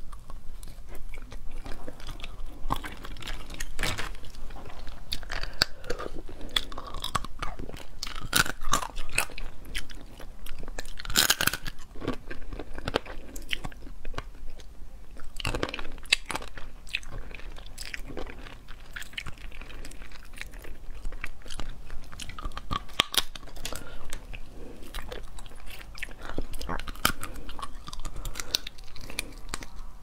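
Close-miked chewing and biting into spicy crab claws, with repeated crunches and cracks of shell between bites; the loudest crack comes about eleven seconds in.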